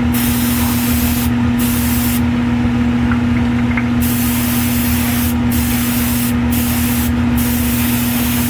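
Airbrush spraying acrylic paint, its air hiss cut off several times in short breaks as the trigger is let off; the longest break starts about two seconds in and lasts nearly two seconds. A steady low hum runs underneath.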